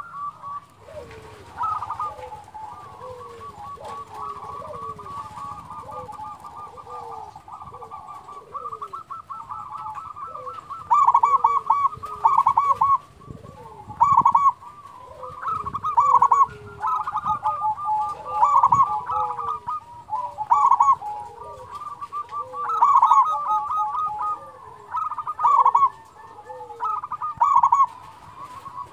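Zebra dove (perkutut) song: long runs of rapid, rolling staccato coos, with softer short notes falling in pitch beneath them. From about ten seconds in, loud bursts of cooing come every one to two seconds.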